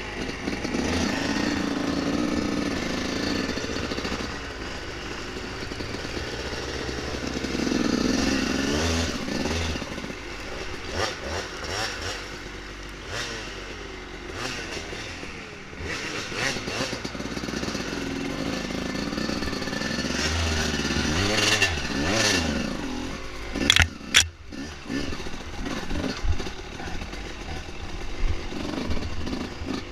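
Dirt bike engine running on a trail, its revs rising and falling repeatedly, with rattling from the ride and two sharp knocks near the end that are the loudest moment.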